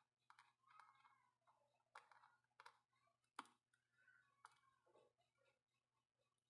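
Faint scattered clicks and taps of small hand tools during a tablet repair, with one sharper click about three and a half seconds in.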